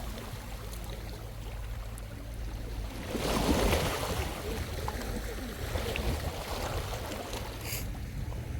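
Small sea waves washing onto a shallow beach, with one louder wave breaking about three seconds in, over a low rumble of wind.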